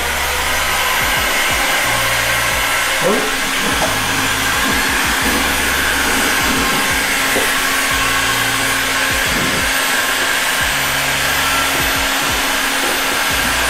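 Electric heat gun running steadily, its fan blowing hot air with a faint steady whine.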